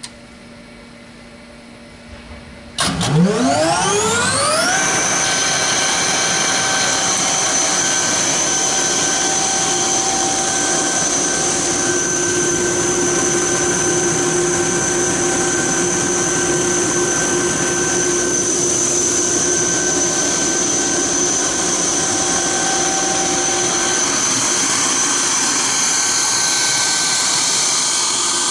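A 1998 Quincy 30 hp rotary screw air compressor starting up. About three seconds in it kicks on suddenly and its pitch rises for about two seconds as the motor comes up to speed. It then runs steadily with a constant whine over a loud rushing noise.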